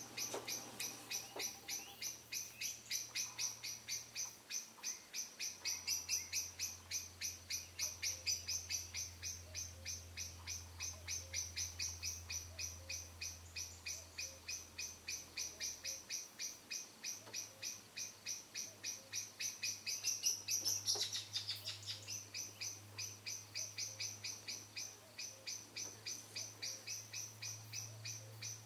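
A bird calling in a steady, rapid series of high chirps, about four a second, with a faint low hum underneath.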